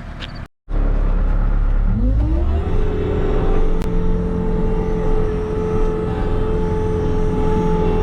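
Bobcat skid-steer loader's engine running. It starts abruptly after a short gap, is throttled up about two seconds in with its pitch rising, and then holds a steady high speed.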